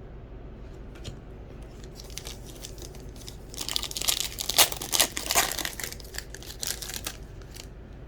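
Wrapper of a 2021 Donruss Baseball trading-card pack crinkling and tearing as it is opened by hand, with scattered crackles at first, a dense loud stretch about halfway through, then a few last crackles.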